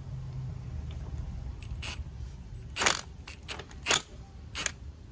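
Sharp metallic clicks and knocks, about one a second, from hand tools working on a front strut and coil spring, over a steady low hum.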